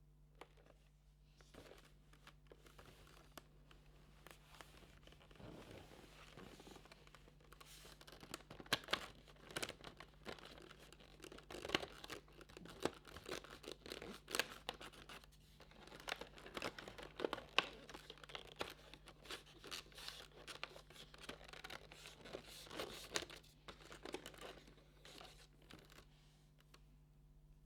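Cardboard and packaging being torn and crinkled by hand as an advent calendar compartment is opened and a small boxed makeup item is unwrapped: an irregular run of tearing, rustling and crinkling, busiest through the middle. A faint steady low hum lies underneath.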